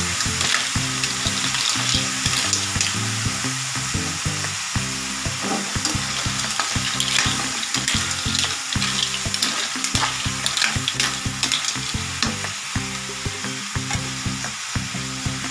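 Food sizzling in a hot frying pan while a utensil stirs it, with frequent short clicks and scrapes against the pan.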